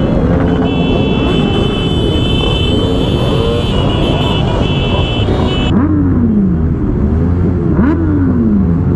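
Many motorcycle engines idling together, with riders blipping their throttles so the revs rise and fall over one another. In the second half one nearby bike revs up and down several times over its steady idle.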